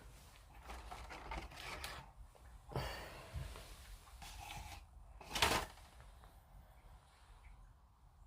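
Plastic model kit parts being handled and cut off the sprue: soft rubbing with a few small clicks, and one louder, sharper snip about five and a half seconds in.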